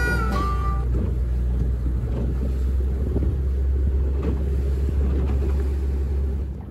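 Small boat's engine running steadily under way: a loud, even low drone mixed with water and hull noise. The tail of flute-like background music fades out in the first second.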